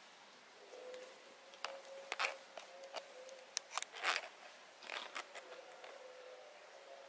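Thin metal tweezers clicking and tapping against a plastic bowl while debris removed from a kitten's fur is shaken off into it. The sharp clicks are loudest about two and four seconds in.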